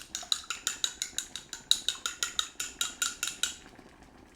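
Raw egg being beaten in a bowl: a utensil strikes the side of the bowl in quick, even clinking strokes, about six a second, and stops about three and a half seconds in.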